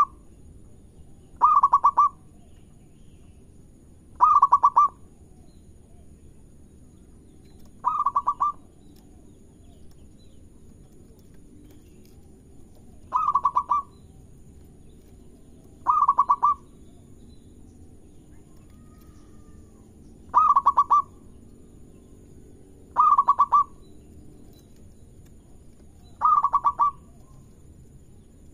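Zebra dove (local perkutut) singing: eight short phrases of rapid, pulsing cooing notes, repeated every few seconds.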